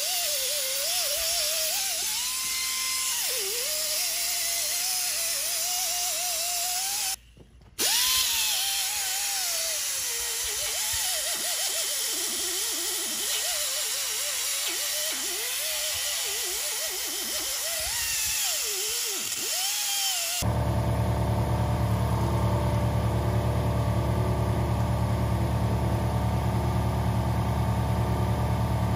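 Handheld pneumatic die grinder with a small abrasive or wire wheel running against a cast-iron engine block, its whine dipping and rising as it loads up on the metal. It stops for a moment about seven seconds in. A steadier, deeper machine hum replaces it for roughly the last eight seconds.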